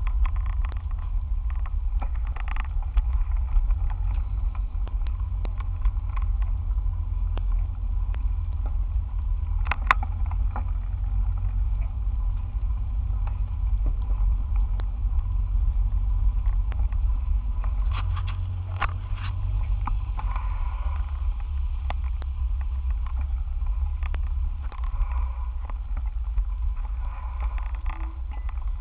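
Steady low rumble of a bicycle ride picked up by a cheap handlebar-mounted camera, with sharp clicks and knocks from the bike and mount jolting over the rough, debris-covered road, one loud one about ten seconds in and a cluster around eighteen to nineteen seconds in.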